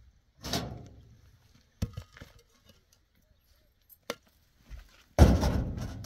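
Building blocks being handled and dropped: a thud about half a second in, a couple of sharp knocks near two seconds, a short click past four seconds, and the loudest, heaviest thud a little after five seconds, which trails off over about a second.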